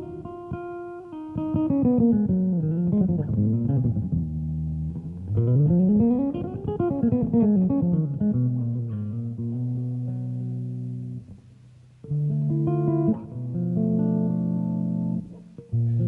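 Electric bass guitar played unaccompanied: sustained low chords and long sliding glides that sweep down and back up in pitch, with a brief pause about eleven seconds in before the chords resume.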